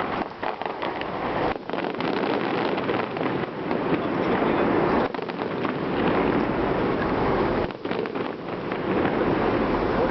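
Fireworks display: a dense, continuous crackling and rumbling of bursting shells, with deeper booms about halfway through and again near the end.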